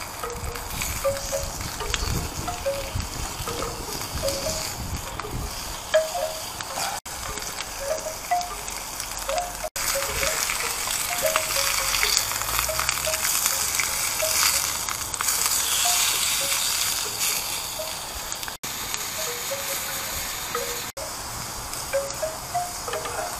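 Turkey breast steaks sizzling on a hot ribbed cast iron griddle over a small wood fire, a steady hiss that grows louder around the middle.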